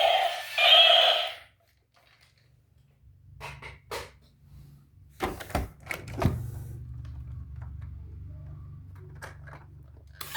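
A loud electronic toy sound stops about a second and a half in; then come a few sharp clicks and knocks of a plastic toy vehicle being handled, over a faint low steady hum.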